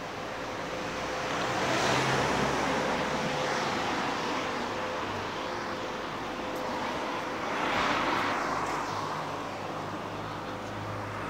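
Street traffic: cars passing on the road, with two louder passes, about two seconds in and again near eight seconds.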